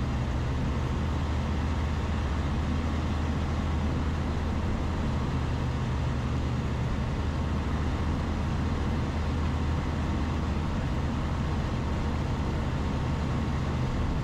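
Steady drone of the Zenith STOL CH 701's Rotax 912ULS flat-four engine and propeller, throttled back for the descent to landing, with a hiss of airflow over it.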